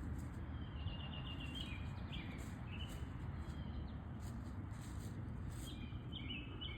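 Small songbirds chirping in short trilled phrases, twice: about a second in and again near the end, over a steady low rumble of outdoor background noise.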